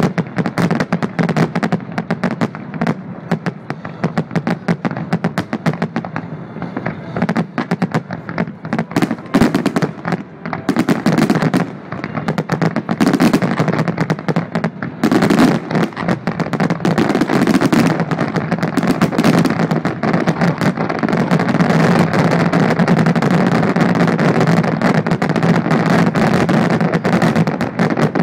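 Fireworks display: a rapid, continuous barrage of aerial shell bursts. The bangs grow denser and louder about halfway through and run into an almost unbroken stream of overlapping explosions near the end.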